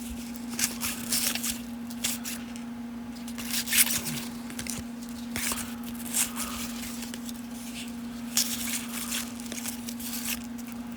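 Baseball card pack wrapper being torn and crinkled, with the cards inside handled and slid against each other in short irregular scratchy rustles. A steady low hum runs underneath.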